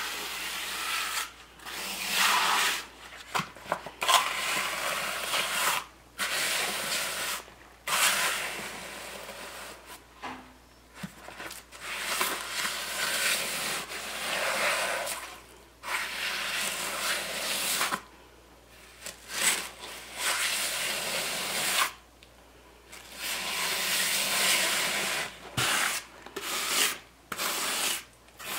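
Steel hand trowel scraping and pushing wet concrete mix across a countertop form, in repeated strokes of a second or two with short pauses between them.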